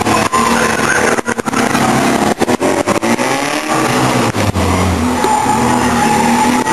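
Car engine revving hard, its pitch rising and falling repeatedly as the car accelerates and slows through tight manoeuvres; the sound cuts out for brief instants many times.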